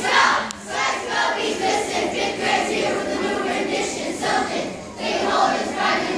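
A group of young children chanting loudly in unison, their class's call-and-response cheer, with a brief dip just before the last part.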